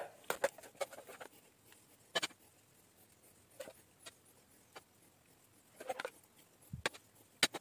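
Metal spoon clinking and scraping against a glass cup while scooping out and spreading a thick whipped curd cream: scattered soft clicks and taps, a few of them sharper.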